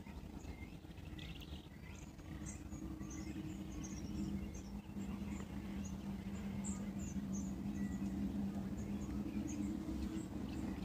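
Small birds chirping, many short high calls scattered throughout, over a steady low hum that grows louder about halfway through.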